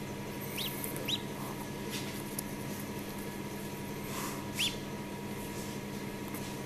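Khaki Campbell duckling peeping from inside its partly opened egg: three short, high peeps, each rising then falling, the last about four and a half seconds in. A few faint clicks as fingers pick at the eggshell, over a steady low hum.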